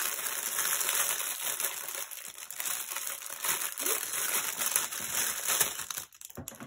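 Clear plastic packaging crinkling continuously as hands pull a packet open and peel it off a small diamond-painted piece, dropping away about six seconds in.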